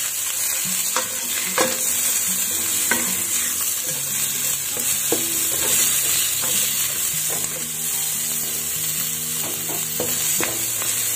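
Whole prawns and minced garlic sizzling in hot oil in a nonstick wok. A spatula scrapes and taps against the pan now and then as they are stir-fried.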